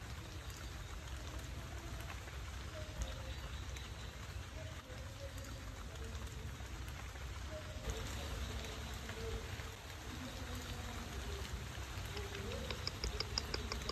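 Steady, even hiss of rainforest ambience with a low rumble underneath. Near the end comes a quick run of high ticks, about five a second.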